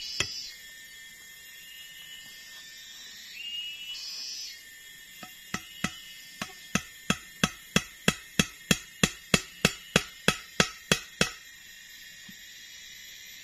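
A hammer striking wood in a run of about twenty sharp blows that quicken to roughly three a second, nailing a rung of a wooden pole ladder. The blows start about five seconds in and stop about eleven seconds in, over a steady high drone of forest insects.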